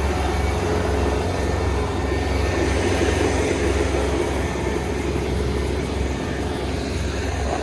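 Kubota ER470 combine harvester running steadily, a constant low diesel engine drone with mechanical clatter over it.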